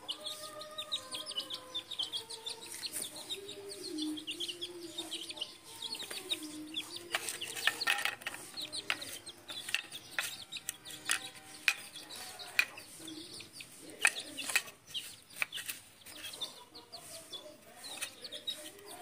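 Chickens clucking: a hen gives drawn-out, wavering calls in the first few seconds, while young chicks peep. Sharp taps of beaks pecking at grain on a hard tiled floor are scattered throughout.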